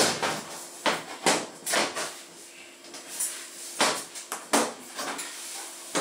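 Thin sheet-metal side panel of a dishwasher being handled against the machine's frame: irregular sharp knocks and clatters with quieter scrapes between them.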